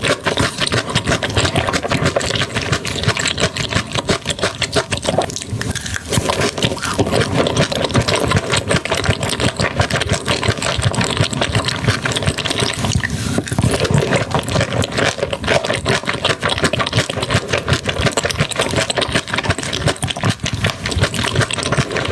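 Close-miked eating sounds: rapid wet chewing and crunching of seafood, a dense run of small clicks with no let-up.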